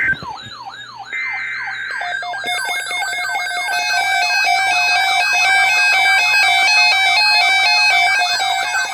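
Emergency Alert System tones: a short buzzy digital data burst about a second in, laid over electronic siren sweeps that fall in pitch several times a second. From about two and a half seconds in, more sweeps and stepping beeps pile on top, building into a dense, loud electronic alarm.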